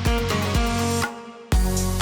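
Background electronic music with a steady drum beat that drops out briefly about a second in and comes back with a deep bass hit.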